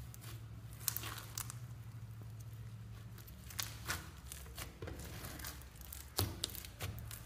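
Slime being squeezed and stretched by hand, giving irregular sticky crackles and pops over a low steady hum.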